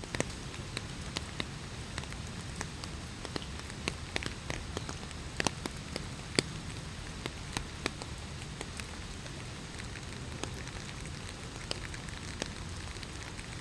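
Light rain falling: a steady hiss of rain with individual drops striking close by as irregular sharp ticks.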